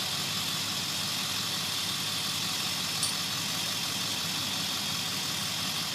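Pickup truck engine idling steadily, with one brief click about halfway through.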